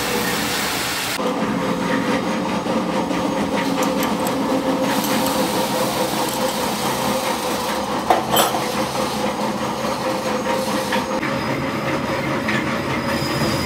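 Metal lathe running with a steady hum while its tool bores and cuts an internal thread in a steel hydraulic cylinder barrel. A single sharp clank stands out about eight seconds in.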